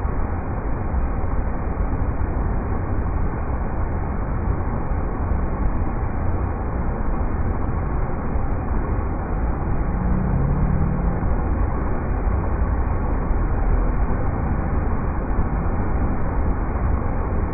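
River rapids: a steady, deep rush of fast-flowing water.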